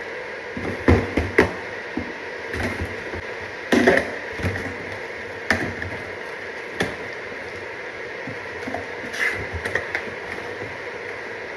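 Irregular knocks, clicks and clatter of tools and parts being handled during an HVAC installation, over a steady hum. The sharpest knocks come about a second in and again around four seconds.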